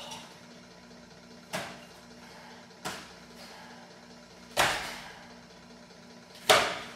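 Four sudden, short bursts of sound from a White Crane kung fu practitioner's forceful strikes during the Sanchin form. They come a second or two apart, each dies away quickly, and the last is the loudest. A faint steady hum runs beneath.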